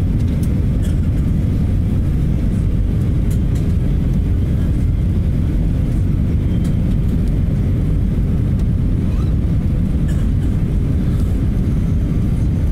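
Steady low rumble of airflow and jet engines inside the cabin of an Airbus A320 on approach with its flaps extended, with a faint steady hum running through it.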